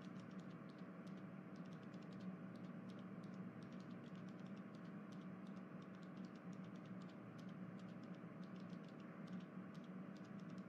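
Faint, irregular clicking of computer keyboard typing, several keystrokes a second, over a steady low hum.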